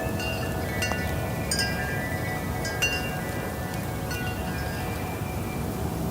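Wind chimes ringing in the breeze: irregular strikes a second or so apart, each leaving several high, overlapping tones that ring on, over a steady low background rush.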